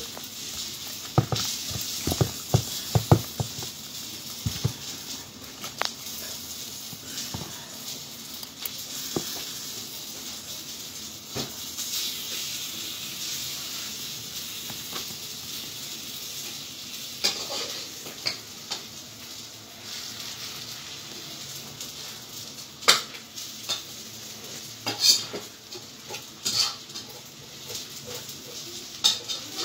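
Fried food being scooped out of a frying pan with a perforated metal skimmer into plastic containers: a run of quick metal clinks and scrapes in the first few seconds, a few sharper knocks later, over a steady hiss of hot oil sizzling.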